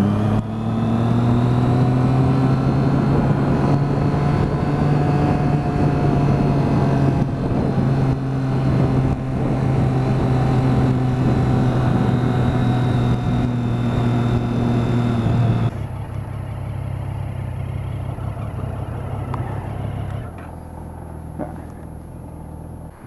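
Triumph Street Triple's three-cylinder engine running at steady revs under way, with wind noise. About two-thirds through, the engine note drops away and the sound gets quieter, then quieter still near the end as the bike slows.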